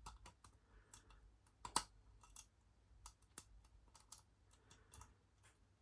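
Small metal clicks and light scraping from a hook pick working the pins in a cheap padlock's keyway, irregular and spaced out, with one sharper click about two seconds in.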